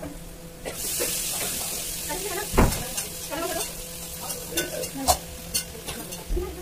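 Vegetables sizzling in a hot frying pan, the hiss growing much louder about a second in. There is a sharp metal clank about two and a half seconds in, and a few knocks and clicks of stirring near the end.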